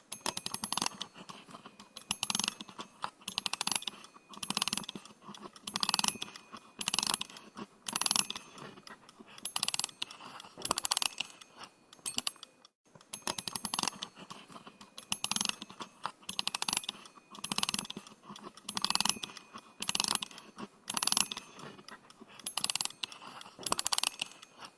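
A clockwork mechanism being wound by hand, its ratchet clicking in short runs about once a second, one run per twist of the key, with a brief break a little past halfway.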